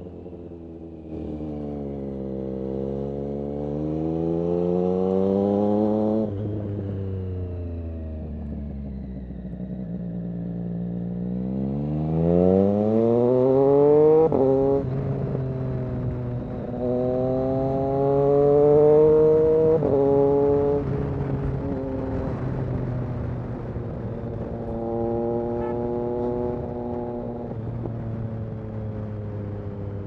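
Triumph Street Triple RS 765's three-cylinder engine through an SC Project S1 exhaust, heard from the saddle while riding. It revs up with a sudden drop in pitch at each upshift, about 6, 14 and 20 seconds in. It winds down slowly once in between and settles into a steady cruise near the end.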